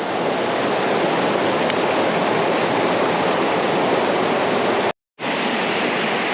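Creek water rushing steadily, with a short dropout to silence about five seconds in.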